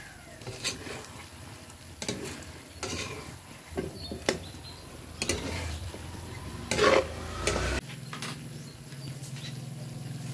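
Metal spatula stirring and scraping chicken feet around a large wok, knocking against the pan at irregular intervals over a steady sizzle as they stir-fry in their sauce. About eight seconds in, a low steady hum starts.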